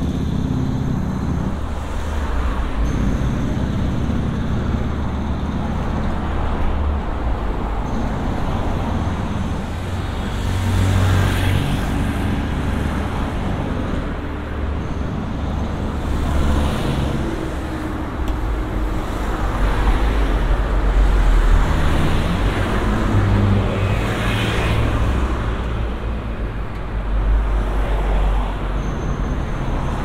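Road traffic on a city street: a steady low engine rumble with several cars passing by one after another, each swelling up and fading away.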